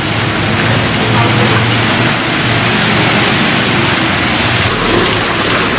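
Motorcycles riding through a flooded street: a steady rush of water splashing from the tyres over the low hum of the engines.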